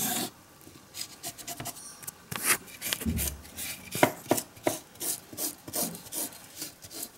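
Cloth-tipped wooden stick rubbing and scraping over the surfaces of model-railway diorama buildings, wiping dust off them in a run of quick, irregular scratchy strokes.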